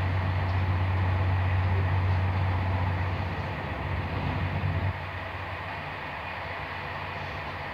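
Steady rolling noise of a Corail passenger coach at speed, heard from inside. For the first five seconds or so a louder low rumble fills it as a red train passes close alongside on the next track, cutting off suddenly when it has gone by.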